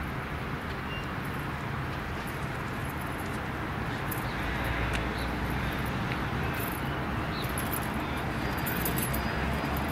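Volvo hybrid city bus driving toward the listener, a low steady drone that grows louder about halfway through as the bus draws near, over a background of road noise.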